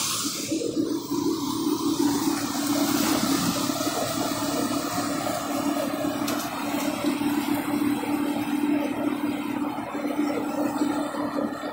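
Harnam paddy thresher running at full work: a steady machine hum under a dense rushing noise as threshed straw and chaff are blown out of its outlet.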